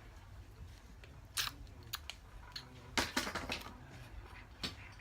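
A few short clicks and rustles, with a small cluster about three seconds in, over a low background hum.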